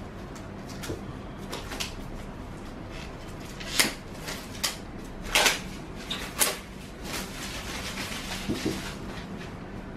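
Hands working open a cardboard product box: small scattered clicks and scrapes, a few sharper snaps of the lid and flaps around the middle, then a crinkly rustle of a clear plastic bag near the end.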